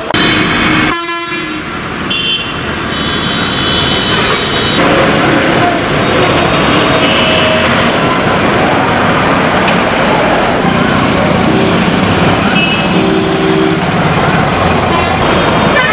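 City road traffic: engines and tyres of passing vehicles, with horns honking repeatedly. A long high honk comes from about two to five seconds in, with shorter honks in the middle and near the end.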